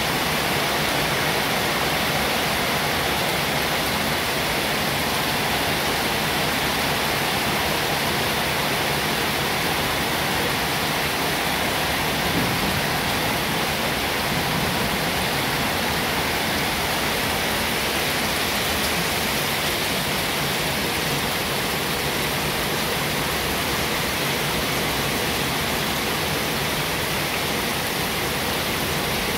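A steady, unbroken rushing noise, even in level throughout, with no clicks, voices or rhythm standing out.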